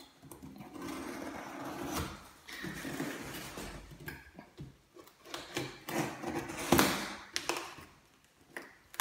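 Cardboard shipping box scraping and rustling as it is turned over on a steel scaffold plank, with a utility knife slicing through the box's packing tape. There are a few sharp knocks along the way.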